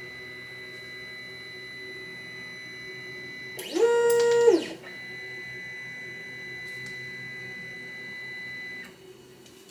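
Sunlu S8 3D printer's stepper motors whining as the print head makes one move for bed leveling about four seconds in: the pitch rises, holds for about a second, then falls as the move slows and stops. Under it the printer gives a steady high hum that cuts out near the end.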